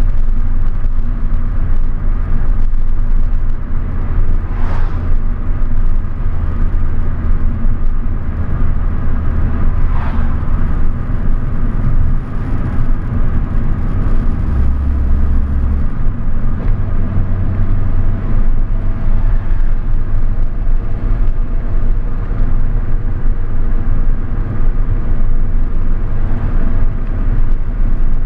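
A car driving, its road and engine noise a loud steady low rumble.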